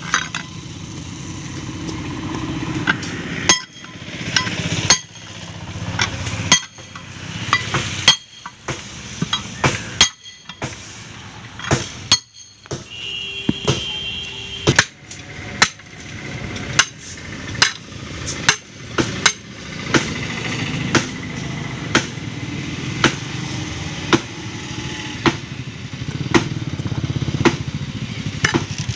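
Repeated sharp metal clanks at uneven spacing, about one a second, as steel tyre levers are jabbed and pried against the steel rim of a truck tyre to work the tyre off the wheel. A steady low rumble runs underneath, and a brief high tone sounds about halfway through.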